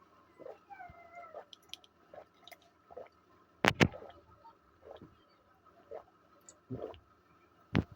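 A man with a feverish cold coughing, once sharply a little under four seconds in and again more softly near the end, with faint high wavering sounds in the first second and a half.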